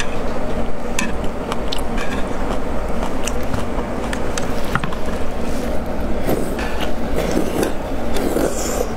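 Close-miked eating: chewing and slurping noodles and pieces of food in broth, with many short clicks from chopsticks against the tray.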